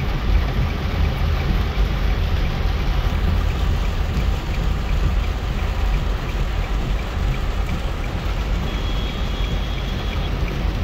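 Heavy rain on a moving car, heard from inside the cabin, over a steady low rumble of the car driving through floodwater. A faint high tone sounds briefly near the end.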